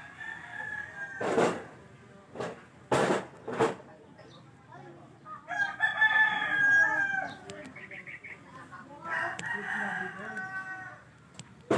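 A rooster crowing twice, about six and nine seconds in. Several sharp knocks come in the first few seconds.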